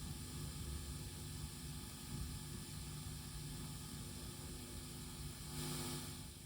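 Faint steady hiss with a low hum, free of any cracking or popping; the hiss brightens briefly near the end.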